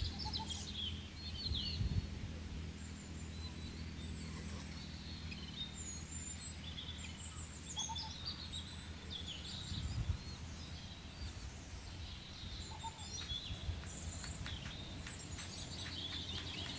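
Small birds chirping and calling on and off, in short quick notes, over a steady low outdoor background noise.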